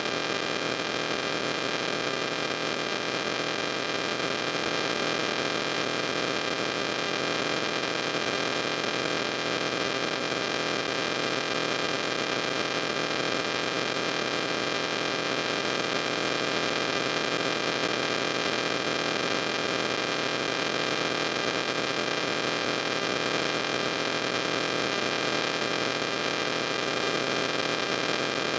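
Steady electrical hiss and hum with a few faint high whining tones, unchanging throughout: noise of the recording chain with no other sound on it.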